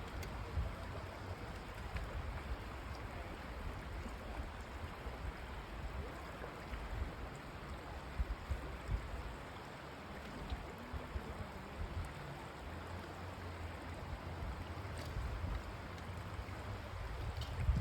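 River water rushing, a steady hiss, with an uneven low rumble underneath.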